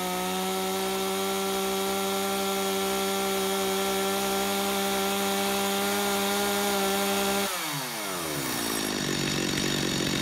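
Stihl chainsaw's two-stroke engine held at full throttle on the bench, screaming at a steady high pitch, then let off after about seven and a half seconds and falling back to idle. Set at the factory high-speed screw setting of 1.5 turns out, it tops out about 1,000 RPM below its 12,500 RPM maximum.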